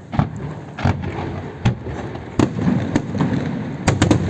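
Aerial fireworks going off: single sharp bangs about every second, then three in quick succession near the end, over a steady low rumble.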